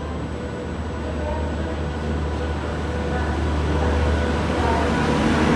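Indian Railways electric locomotive and its coaches running slowly along a station platform, a steady low rumble that grows louder as the locomotive draws near.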